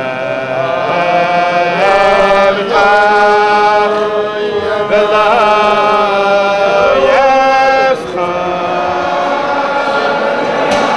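A group of voices singing a slow melody together, in long held notes that shift every second or two, with a few glides between notes.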